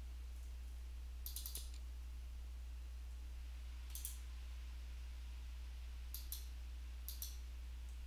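Computer mouse clicks in small, quick groups a few seconds apart, over a steady low electrical hum.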